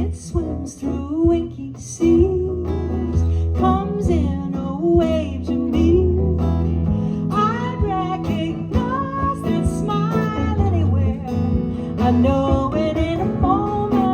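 A song: singing over acoustic guitar, with a steady bass line underneath.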